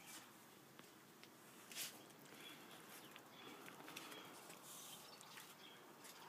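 Near silence: faint outdoor background with a few soft scattered clicks, the loudest about two seconds in.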